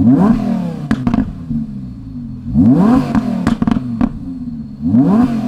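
Audi R8 V10 engine revved in three quick blips, each followed by a string of sharp pops and crackles from the exhaust as the throttle closes. These are tuned overrun crackles on a hard setting that cuts all cylinders, with the exhaust flaps held fully open.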